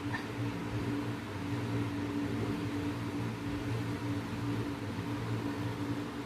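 Steady low electrical hum with an even hiss from a running room appliance.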